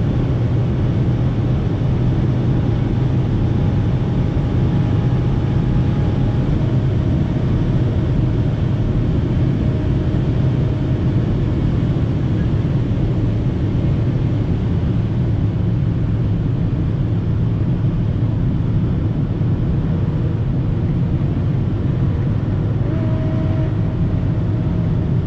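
Ferrari GTC4Lusso's V12 engine together with wind and road noise, heard inside the cabin at close to its top speed of about 335 km/h: a loud, steady, deep rushing drone.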